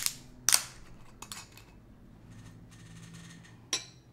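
A bottle of Stella Rosa Green Apple semi-sparkling wine being opened and handled: several sharp clicks and snaps, then a soft fizzing hiss for about a second, and another sharp click near the end.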